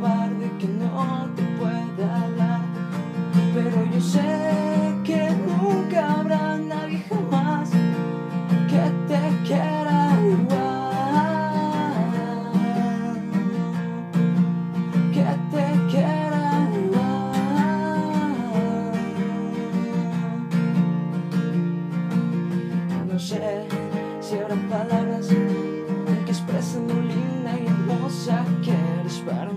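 Acoustic guitar strummed in an instrumental passage of a song, a steady chord pattern with a melody moving above it.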